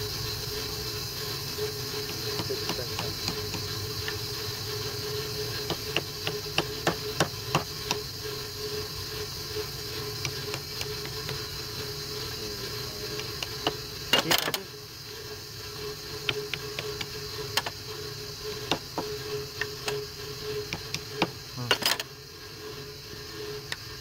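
Wood lathe running with a steady hum and hiss as a wooden vessel spins on it, with scattered sharp ticks and two louder knocks, about 14 and 22 seconds in.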